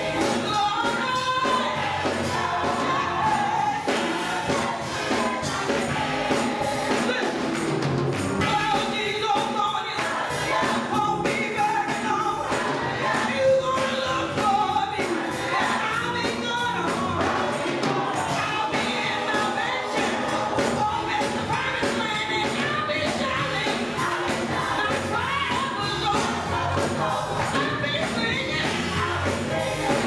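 Gospel choir singing in full voice with keyboard accompaniment and a steady beat.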